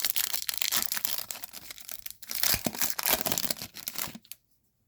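Wrapper of a Topps baseball card pack being torn open and crinkled by hand, a dense crackling that stops about four seconds in.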